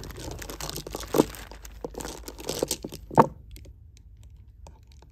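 Handling noise from strands of large fireball baroque pearls and a plastic zip bag: a dense crinkle and rustle of clicks, with two sharper knocks, settling into a few faint ticks after about three and a half seconds.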